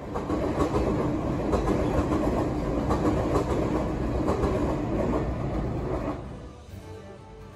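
JR West 283 series 'Ocean Arrow' Kuroshio limited express electric train running past the platform close by, with repeated wheel clacks over the rail joints. The noise cuts off about six seconds in.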